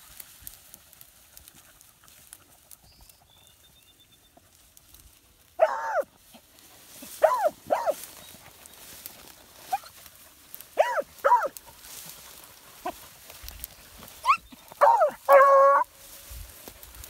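Scent hounds giving voice while running a track: a scattering of short barks and bays starting about five seconds in, ending with one longer, drawn-out bay.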